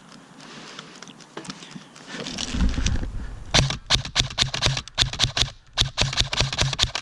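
Airsoft gun firing a rapid, even string of sharp shots, roughly seven a second, that starts about three and a half seconds in and pauses briefly partway through. Before the shots there is rustling handling noise.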